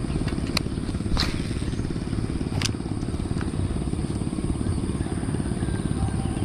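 Motorcycle running on the move, its engine noise mixed with a low, fluttering wind rumble on the camera mic. There are a few sharp clicks in the first three seconds.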